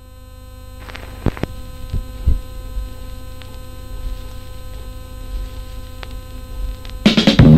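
Steady electrical mains hum with a pulsing low throb, growing louder, with a few low thumps and clicks between one and two and a half seconds in. Near the end a heavy metal band comes in loudly.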